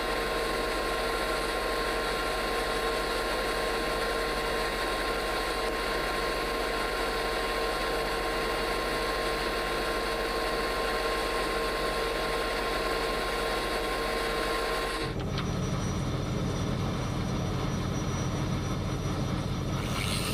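Stick welding with a 7018 electrode: a steady arc hiss over a constant electrical hum. About fifteen seconds in, the hiss cuts out suddenly and a lower rumble takes over.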